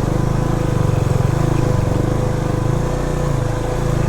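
Motorcycle engine running at low revs, its note rising and falling a little as the bike is ridden slowly over a rough road.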